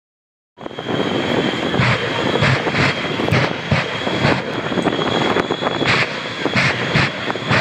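Jet-powered semi truck's jet engines running at full power down the runway: a loud rushing noise with a steady high whine through it and repeated brief surges, starting about half a second in.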